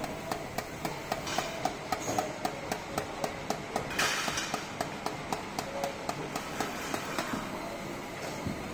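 Wooden mallet tapping a perforated brass plate on a wooden block: a quick, even run of knocks, about four a second, each with a short metallic ring. The tapping stops about two-thirds of the way through.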